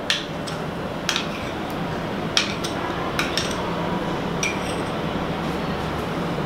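A metal spoon scraping and tapping Greek yogurt out of a cup into a steel mixer jar: about seven short, light clinks spread over the few seconds.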